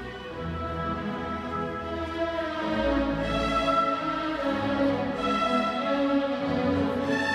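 Orchestral classical music, strings holding long melodic notes, swelling a little about three seconds in.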